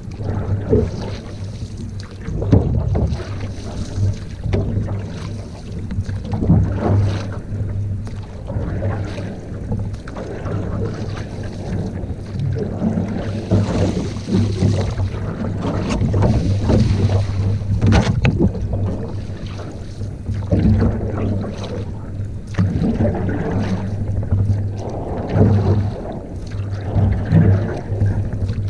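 Canoe out on the water, with water noise and wind on the microphone, a steady low hum underneath and occasional short knocks.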